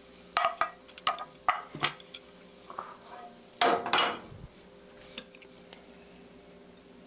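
Wooden spoon and wooden chopsticks knocking and scraping against a pan and a ceramic plate while stir-fried onions are served: a few sharp knocks in the first two seconds, then a louder, longer clatter about halfway through, and a few light ticks as the onions are arranged.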